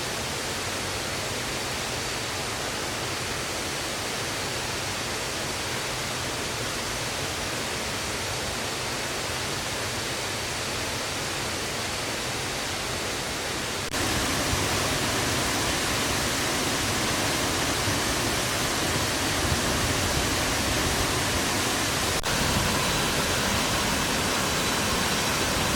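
Steady rushing of a waterfall, an even roar of falling water that steps up a little in loudness about 14 seconds in.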